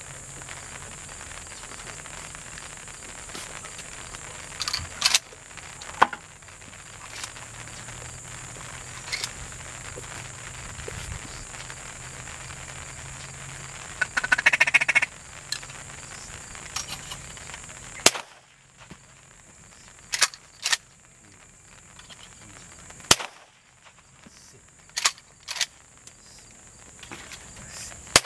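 A duck call blown in a quick run of quacks about halfway through, amid a scattering of sharp gunshot cracks, the last one right at the end.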